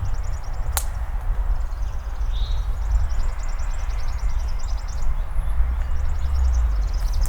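Songbirds singing rapid, high-pitched trills over a steady low rumble, with a walker's footsteps and a single sharp click about a second in.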